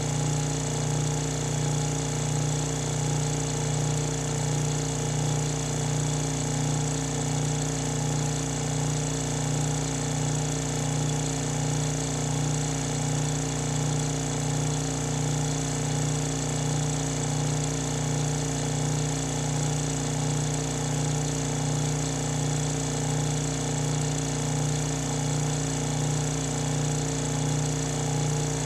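Oil-free twin-head dry rocking-piston vacuum pump running steadily: a constant motor-and-piston hum with a slight regular pulse.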